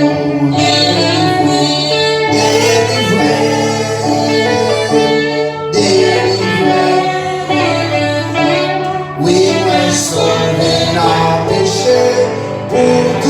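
Gospel worship music: voices singing over guitar and a backing band, carrying on without a break.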